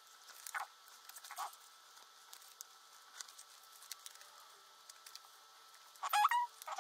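Sheet of origami paper being folded and creased by hand: faint, scattered rustles and crinkles, with a louder rustle about six seconds in.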